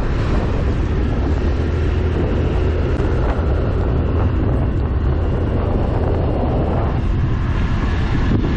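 Steady wind rush over the microphone and road noise from a motorcycle riding along, with a heavy low rumble underneath.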